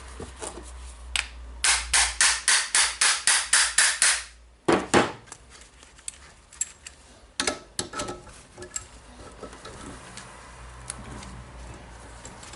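Hammer striking metal, about ten quick blows at roughly four a second, then two heavier blows and a few lighter knocks and clicks. The blows are on an Allen key set in a drill chuck, hammered to break the stuck chuck loose.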